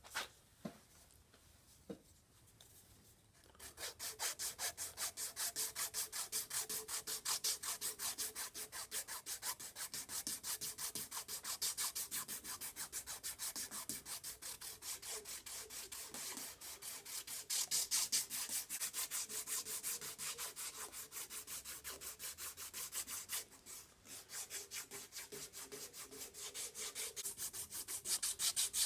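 Hand sanding a wooden knife handle scale: abrasive rubbing on wood in quick, even back-and-forth strokes. They begin about four seconds in after a few light clicks, and pause briefly about three-quarters of the way through.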